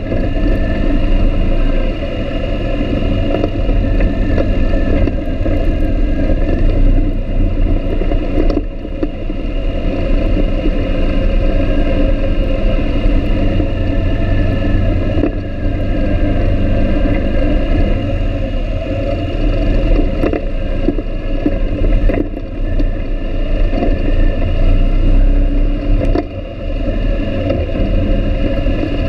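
ATV engine running steadily while riding over a rough dirt trail, its pitch wavering a little with the throttle. Occasional knocks come from the machine jolting over bumps.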